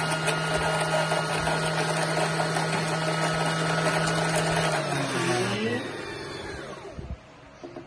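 Singer electric sewing machine motor running steadily while winding a bobbin, then slowing with a falling pitch and stopping about five to six seconds in.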